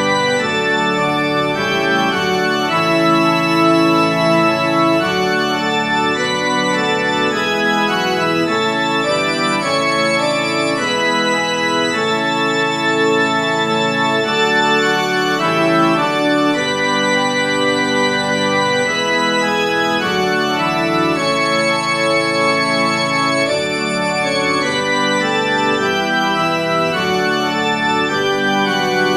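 Organ playing instrumental music in held, full chords that change every second or two: the postlude following the benediction.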